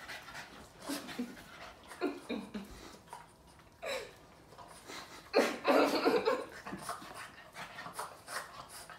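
Boston terrier panting and licking at close range in short, irregular bursts, with one louder stretch a little past halfway.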